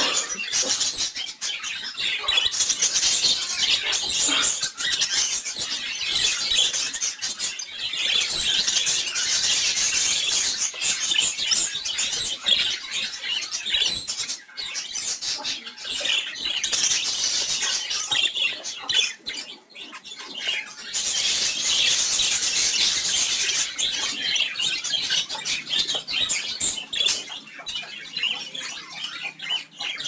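Caged budgerigars chattering and chirping continuously, a dense stream of short high chirps that eases briefly about two-thirds of the way through.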